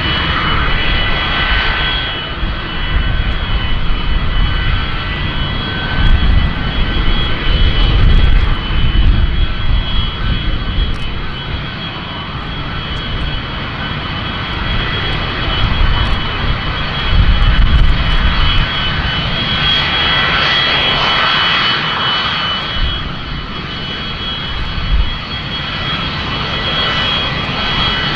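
Hush-kitted Pratt & Whitney JT8D turbofans of a Boeing 727-21 at taxi power: a steady high whine of several tones over an uneven low rumble, swelling for a few seconds around twenty seconds in.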